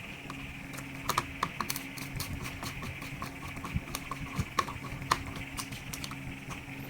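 Scattered small clicks and taps of plastic and metal laptop parts being handled and fitted during reassembly, several in quick succession about a second in and a few more later, over the steady hum of a room fan.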